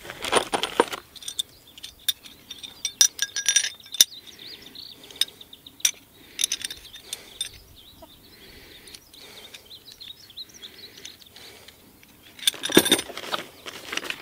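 Metal pipe clamps and bolts from the kit clinking and chinking together as they are handled and sorted, in a string of sharp separate clinks. Bursts of rustling at the start and near the end.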